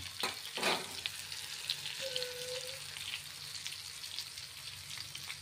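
Rohu fish steaks shallow-frying in oil on a flat tawa: a steady sizzle dotted with small crackles. Two brief sharper sounds about half a second in.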